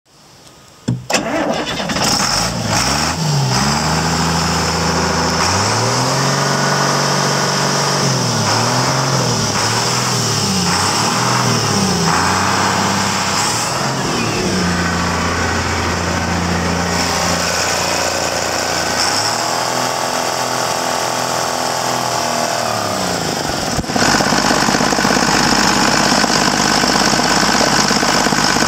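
International DT466 inline-six turbo diesel engine starting about a second in, then revved up and down several times with a few held higher-speed stretches. About 24 seconds in the sound turns louder and rougher and stays steady.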